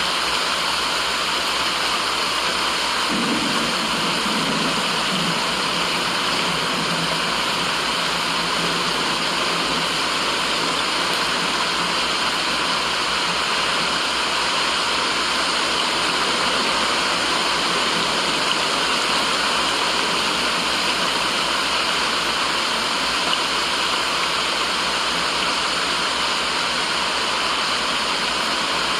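Steady white-noise hiss with no breaks, a bright rushing sound like falling water. About three seconds in, a faint low sound comes in underneath for several seconds.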